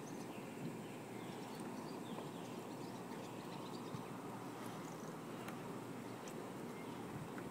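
Faint steady outdoor background noise, with a few soft clicks and some faint high chirps.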